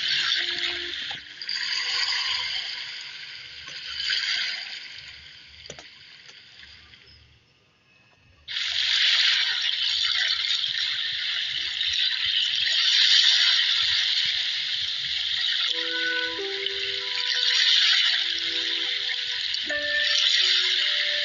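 Rushing, splashing sea water, a steady hiss of waves and spray. It fades away to almost nothing about seven seconds in, then starts again suddenly a second later. From about sixteen seconds, a faint melody of held notes plays along with it.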